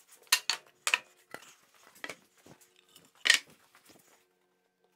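A series of sharp wooden knocks and clatters, with quieter ticks between: heavy wood offcut blocks, used as clamping weights, being lifted off the sled base and set down on the saw table.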